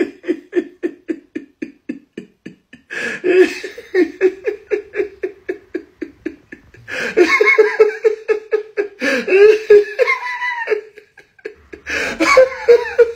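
A woman laughing in rapid, high-pitched 'ha-ha' pulses, about five a second, in several long bouts with short pauses between.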